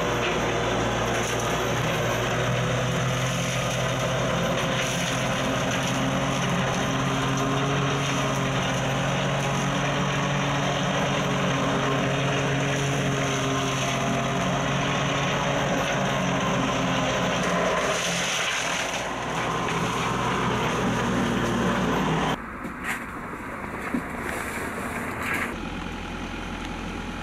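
Backhoe-mounted Kusakarugon flail mower running under load, its rotor shredding tangled vines and brush over the steady sound of the excavator's engine. About five seconds before the end the sound drops suddenly to a quieter steady running with a few light knocks.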